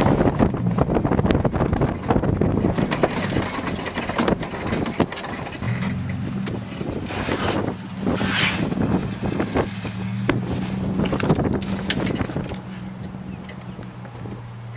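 Toyota pickup truck driving over rough grass, its engine running steadily, with repeated knocks and rattles from the open bed and a brief rush of noise about eight seconds in.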